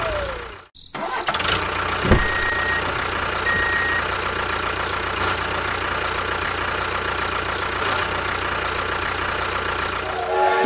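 A small engine running steadily, with a single knock about two seconds in and two brief high beeps just after it.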